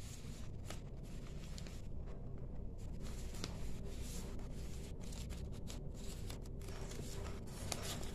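Paper rustling and crackling as a folded sheet of letter paper and a small printed tract are handled and slid together, in short scattered crinkles over a low steady background hum.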